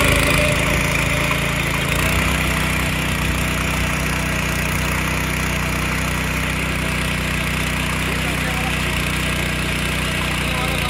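A 7.5 HP power weeder's small petrol engine runs steadily under load while its rotary tines churn dry, stony soil. The tines make a constant gritty crackle of breaking clods and stones. The engine note settles to an even pitch within the first couple of seconds.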